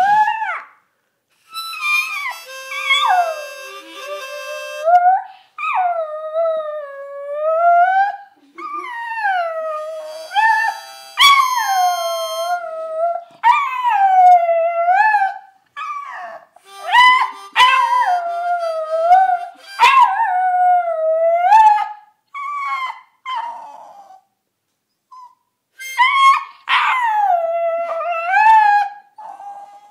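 Cairn terrier howling along to a harmonica: a run of drawn-out howls, each dipping and then rising in pitch, with the harmonica's held chords between and under them.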